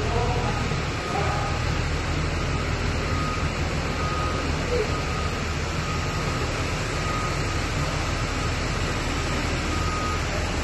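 Steady hum and drone of factory machinery, with a short high electronic beep repeating every second or two.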